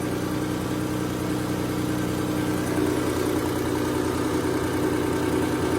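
Diesel fuel injection pump test bench running steadily, spinning a tractor's injection pump while its fuel delivery is measured. The drone holds even, with one of its tones dropping away about halfway through.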